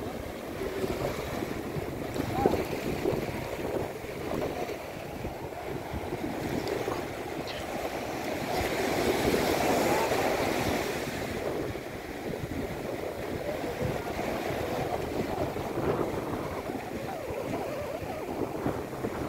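Sea surf breaking and washing up the sand in a continuous rush, with wind buffeting the microphone. The wash grows louder around the middle and then eases.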